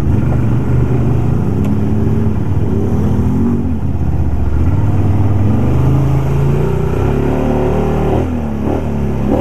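Can-Am ATV engine running while being ridden along a dirt trail, its pitch rising and falling several times as the throttle is worked.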